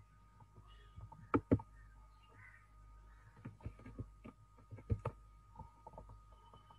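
Scattered sharp clicks and taps, about a dozen at irregular intervals, the two loudest close together a little over a second in, over a faint steady high tone.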